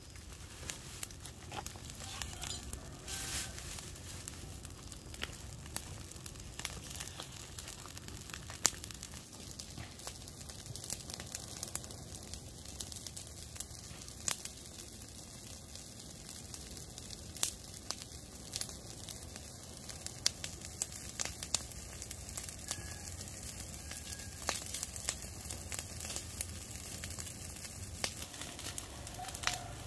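Wood fire crackling, with irregular sharp pops and snaps over a steady low hiss and sizzle.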